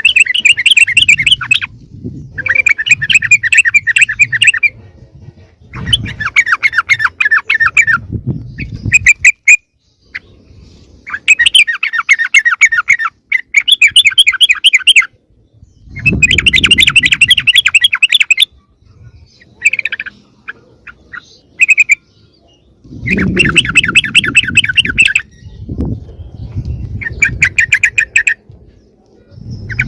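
Yellow-vented bulbul (trucukan) chattering calls, a noisy lure recording: about a dozen loud bursts of rapid scolding notes, each lasting from half a second to a few seconds, with short pauses between them.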